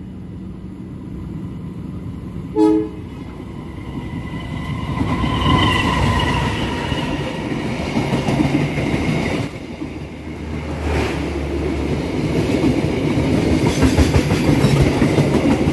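Passenger train passing through on the adjacent track at close range. A short horn blast comes a few seconds in, then the locomotive and a line of coaches go by with a steady clatter of wheels on rail joints that grows louder near the end.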